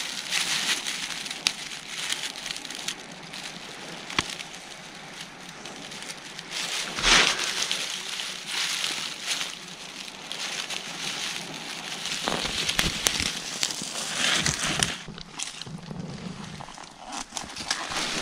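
Breath blown in long puffs into a smoking bundle of dry grass tinder to coax it into flame, with the dry grass rustling and crackling as it is handled.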